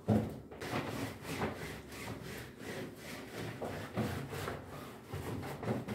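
Back-and-forth wiping of a plastic tablecloth on a kitchen table, a rubbing sound in repeated strokes about two to three a second, after a short knock at the very start.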